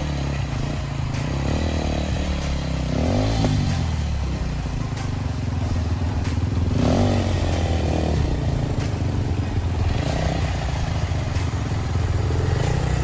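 Off-road enduro motorcycle engine running, its revs rising and falling a few times, with scattered knocks and rattles.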